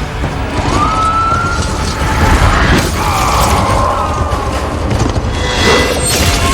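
Film battle sound mix: a heavy low rumble with a few sudden hits, and a high wailing tone that glides up about a second in and slides back down near the middle.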